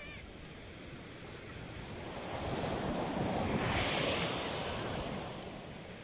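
Small ocean waves breaking and washing up a sandy beach: the surf noise swells to one crest about halfway through and then washes back down.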